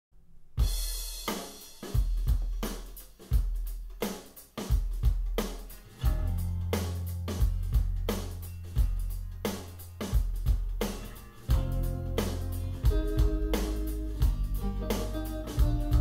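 Recorded music played through a pair of Canton GLE 436 bookshelf speakers and picked up in the room: a drum-kit beat with kick, snare and cymbals starts about half a second in. A steady bass line comes in about six seconds in, and sustained pitched instrument notes join near the end.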